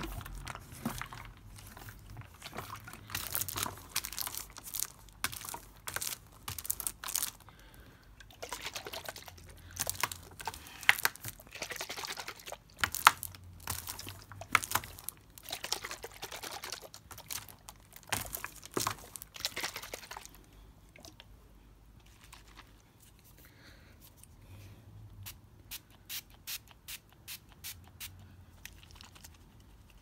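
Clear plastic water bottle handled close to the microphone: rapid crinkling and clicking of the plastic with water moving inside. About two-thirds of the way through it thins out to scattered clicks.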